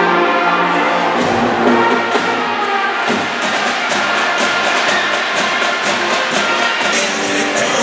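Music with brass and a regular beat, playing without pause.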